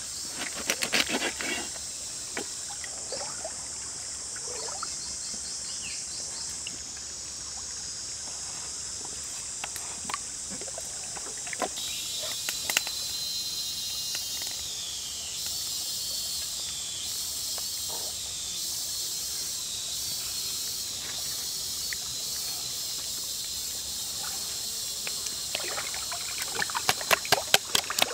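Insects calling steadily in a high band over a trickling stream. Near the start a knife cuts through raw chicken on a wooden board. Near the end come quick wet slaps and squelches of hands rubbing chilli-herb marinade into the raw chicken.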